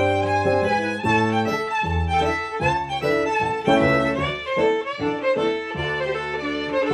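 Fiddle playing a rag dance tune over an accompaniment of low bass notes, the notes moving quickly in a steady rhythm.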